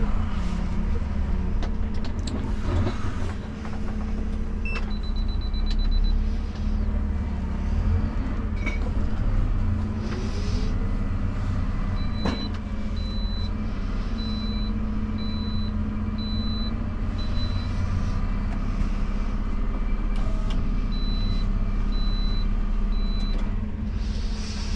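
Dennis Elite refuse truck's diesel engine running steadily while driving, heard from inside the cab, with a few knocks and rattles. A high beep repeats about once a second through most of the second half.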